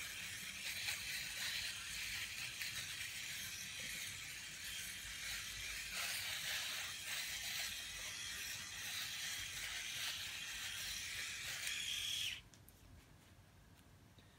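Philips AquaTouch rotary electric shaver running while shaving stubble on the cheek and neck, a steady hissing buzz, with a brief higher whine just before it is switched off about twelve seconds in. The motor has come back to life after a fault that the owner puts down to stuck motor brushes.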